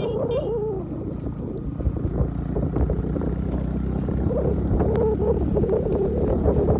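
Motorcycle engine running steadily while riding, heard from on the bike, with wind buffeting the microphone.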